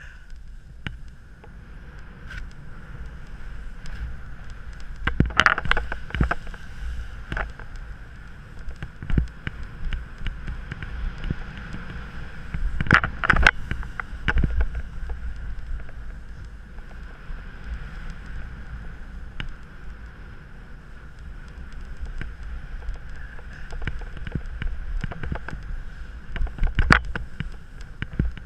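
Wind rushing over the camera microphone and the hiss of riding over snow, with louder surges of scraping about five seconds in, around thirteen seconds, and near the end.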